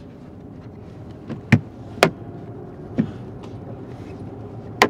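Steady road noise inside a moving car's cabin, broken by four sharp clicks spread over a few seconds.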